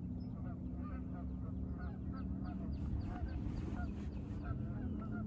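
Birds calling over and over, several short calls a second, with a steady low hum underneath.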